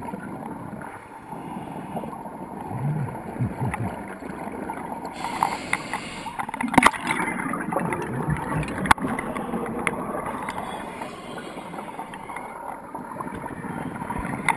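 Scuba diver breathing through a regulator, heard underwater through a camera housing: muffled exhaled bubbles gurgling in rushes every few seconds, with a couple of sharp clicks.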